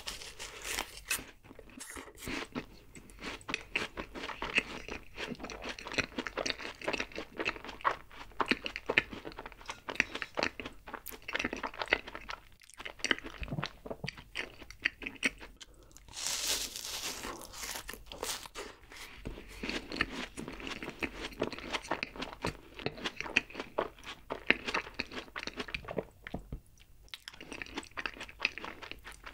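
Close-miked crunching and chewing of a black craquelin-topped cream puff (black crocan choux), its crisp crust crackling between the teeth. Louder crunching comes at the start and again about 16 seconds in, with steady chewing between.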